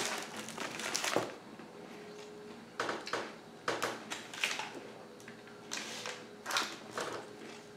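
Fairly quiet room with about eight short, scattered clicks and crunches from people chewing a snack and sipping from a paper cup.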